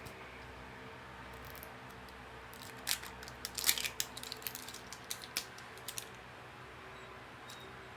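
A burst of irregular clicks and crinkles from plastic toy packaging being handled, from about three seconds in to about six seconds in.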